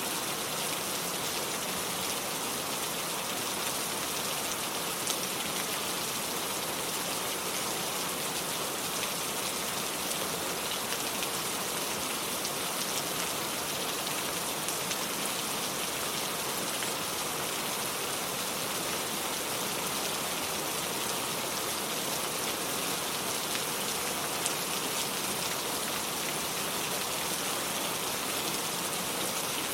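Steady rain falling: an even hiss of many drops, with a couple of slightly louder single drop ticks.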